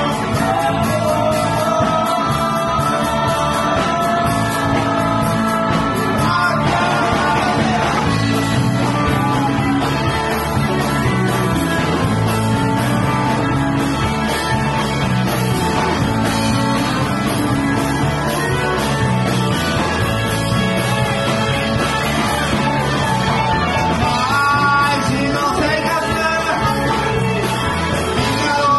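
Live rock band playing: electric guitars and drums, with sung vocals.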